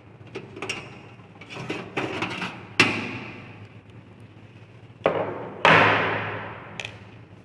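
Computer parts being handled and set down during disassembly of a desktop system unit: small clicks and knocks, then two loud clattering knocks about three seconds apart, each ringing away over about a second.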